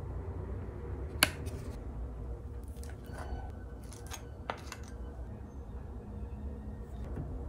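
Kitchen handling sounds over a low steady hum. A sharp click of a plastic cheese-cube tray comes about a second in. Later there is soft scraping and a few light taps as a table knife spreads a topping onto a bagel half.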